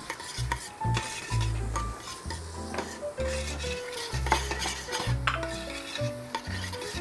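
A metal spoon stirring and scraping in a stainless-steel pot with light clinks, as diced celery, carrot, onion and garlic sizzle gently in olive oil, the start of a tomato sauce. Background music with a steady bass line plays underneath.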